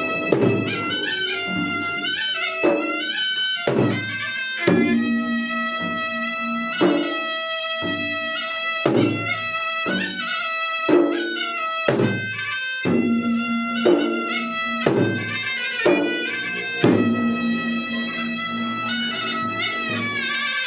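Traditional Makassarese gendang ensemble: double-headed gendang drums beaten in a driving pattern, with heavy strokes about once a second. Over them a reed pipe, the pui-pui, plays a continuous melody.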